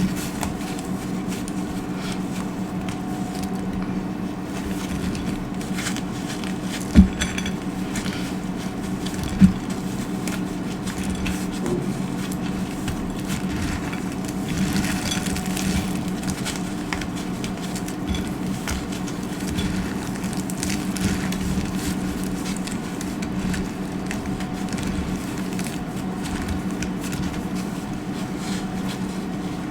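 Dry soap being cut and crunched, crackling steadily, with two sharp knocks about seven and nine and a half seconds in. A steady low hum runs underneath.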